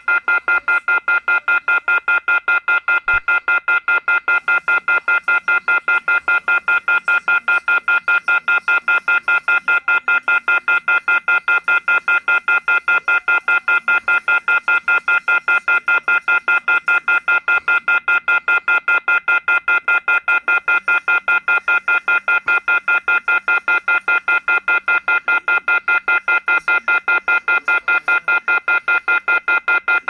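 US telephone off-hook warning tone (receiver off-hook howler): a loud, harsh chord of several high tones beeping on and off rapidly and evenly, with no pause. It signals that a handset has been left off the hook.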